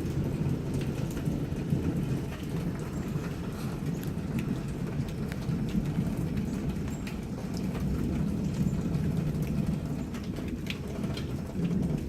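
Rain falling, with scattered drops ticking close by, over a low continuous rumble of distant thunder.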